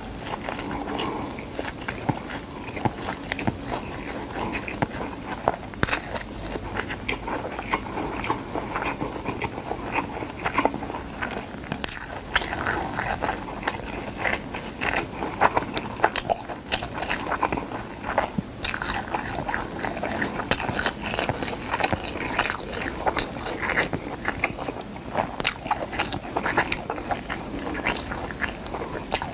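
Chewing and biting through dry, crisp gamtae seaweed sheets: a dense run of crunches and crackles with louder crunches every so often.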